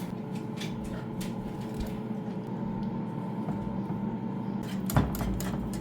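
A kitchen appliance hums steadily, with a few light clicks and one sharp knock about five seconds in.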